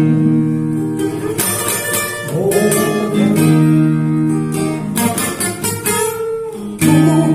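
Acoustic guitar playing slow, ringing chords in an instrumental gap of a ballad, with a fresh stroke about every second.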